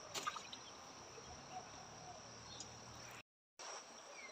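Crickets trilling in a steady high drone over faint outdoor hiss, with a faint click or two just after the start. The sound drops out completely for a moment about three seconds in.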